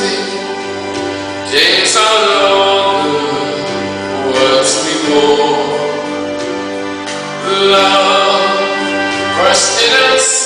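Man singing a ballad into a handheld microphone, holding long notes phrase after phrase, over steady musical accompaniment.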